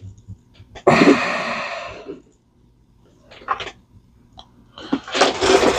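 A person sneezes once, about a second in, a sudden loud burst that fades over about a second. Faint clicks and rustling of handling follow near the end.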